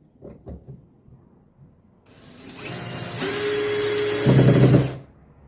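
Power drill driving a screw into wood: a few light knocks, then the drill starts about two seconds in, runs steadily, gets louder for its last half second or so and stops.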